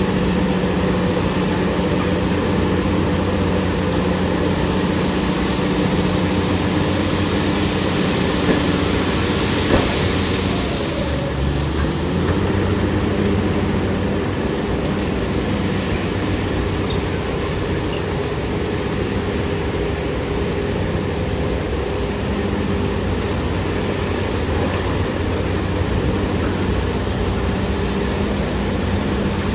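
BEML BD355 crawler bulldozer's diesel engine running steadily, dipping in pitch about ten seconds in and picking back up a couple of seconds later, with a faint high whine over it.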